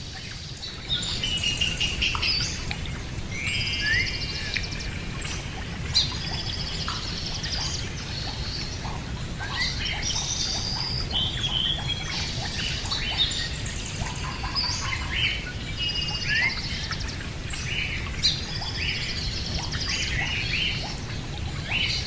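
Birds chirping and trilling, many short overlapping calls throughout, over a low steady rumble.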